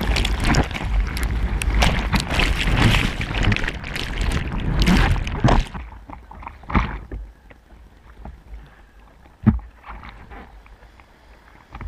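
Sea water splashing and sloshing around a bodyboard's action camera at the surface, loud and dense for about the first five seconds. It then settles to quieter lapping with a couple of splashes and a sharp knock about nine and a half seconds in.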